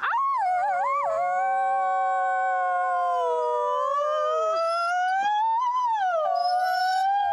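Several wolves howling together: long, overlapping held notes at different pitches that slowly rise and fall and cross one another.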